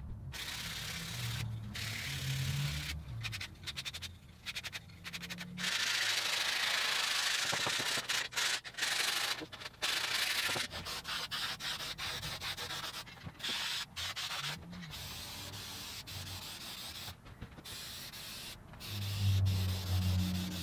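Wooden boards and pieces being handled on a wooden workbench, rubbing and scraping against the wood surface in stretches broken by short pauses.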